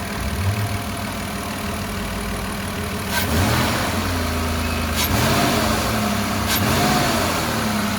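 Ford Maverick's 3.0-litre V6 engine idling evenly, with its pitch rising and falling briefly twice in the second half. It runs smoothly, without misfiring or shaking, on its new spark plugs and ignition coils.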